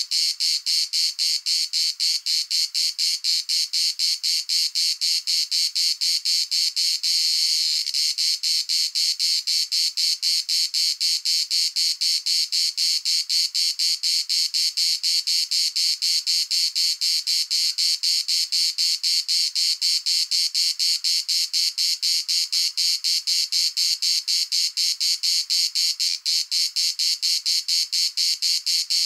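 Insect chorus: a steady, high-pitched, pulsing buzz, about four even pulses a second.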